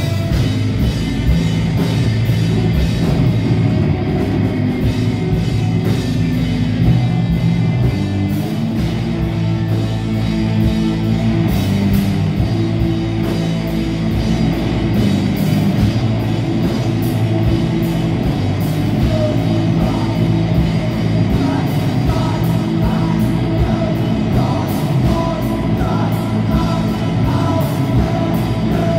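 Live rock band playing loud, with distorted electric guitars, bass guitar and a steady drum beat, and a lead voice singing over it.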